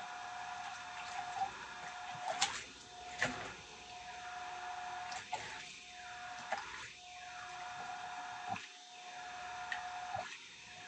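A small electric motor humming steadily, broken every second or two by a click, with a whooshing rush that swells and fades after each break.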